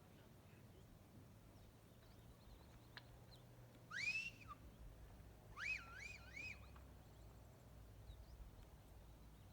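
A bird calling: one clear whistled note that rises and falls about four seconds in, then a quick three-note warble a second and a half later.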